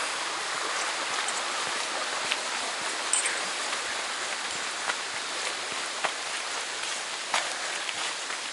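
Steady hiss of rain falling on the forest canopy, with a few scattered light taps.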